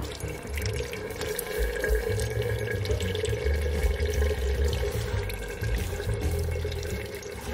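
Water pouring steadily from a watering can's spout onto pebbles in a plant pot.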